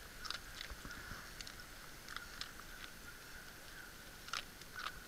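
A dog chewing and crunching its food, in small, irregular crunches and clicks.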